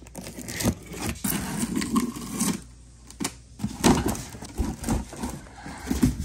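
Cardboard box being opened: a utility knife slitting the box, then the cardboard flaps pulled back and rustling, with irregular scrapes, clicks and knocks as the box is handled.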